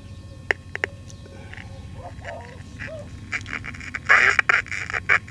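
Coronado AM pocket transistor radio powered from 12 volts through a current-limiting bulb: a low hum and a couple of clicks, then about three seconds in its speaker breaks into loud, crackly, garbled audio. The fault lies in the push-pull audio output stage, where something is shorted and the output transistors are running hot; the repairer suspects bad output transistors.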